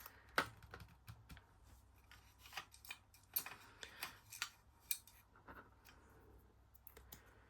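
Irregular small metal clicks and scrapes of tools working on a Chubb padlock as it is being taken apart, a sharp click about half a second in and a cluster of clicks in the middle.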